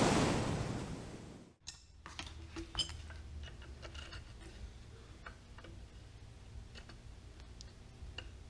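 A rush of wind noise fades away over the first second and a half. It is followed by faint, scattered clicks and light metallic taps of hand tools being worked on a boom pulley block.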